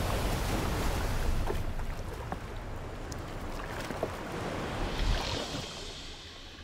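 Water from a breaking wave in a wave tank crashing and rushing over a scale model ship, swamping its deck. The rush is loudest at the start and slowly eases off, with a short surge about five seconds in.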